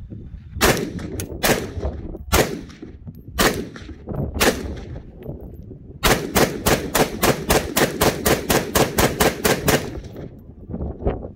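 Lead Star Arms Grunt AR-15 pistol with a 10.5-inch barrel in .223 Wylde, fired semi-automatically. First comes about half a dozen loud shots, spaced unevenly. Then, about six seconds in, a fast even string of roughly seventeen shots follows at about four or five a second, each one echoing briefly.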